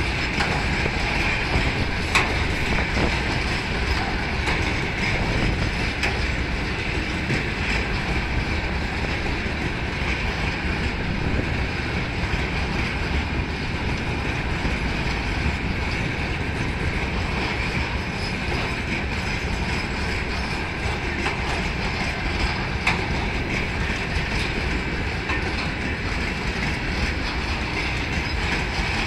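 A long freight train of railway tank wagons rolling past: a steady rumble and hiss of wheels on rail, with a few sharp clicks at rail joints.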